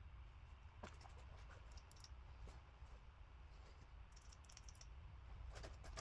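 Near silence: a low hum with a few faint, scattered clicks.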